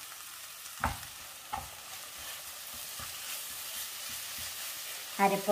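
Onion-tomato masala sizzling in a non-stick frying pan as a spatula stirs and scrapes through it, with two light knocks about one and one-and-a-half seconds in.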